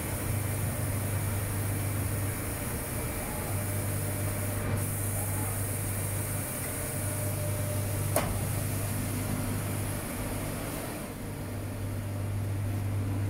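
2007 EMCOTURN E 45 CNC lathe running a machining cycle behind its closed door, coolant spraying inside: a steady low hum with a hiss of spray over it. A single sharp click comes about eight seconds in.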